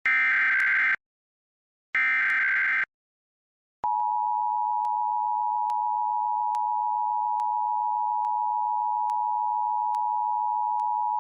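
Emergency Alert System signalling: two roughly one-second bursts of the digital SAME header, a second apart, then about four seconds in, the steady two-tone attention signal of a required monthly test.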